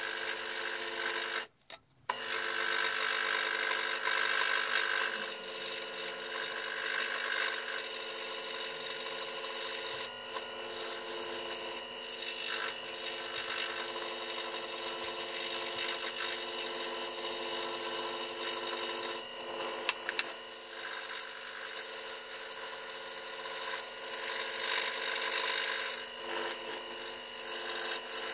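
WEN scroll saw running steadily, its reciprocating blade cutting through a wooden board as it is fed by hand, a steady machine hum with the rasp of the blade in the wood. The sound drops out briefly about a second and a half in.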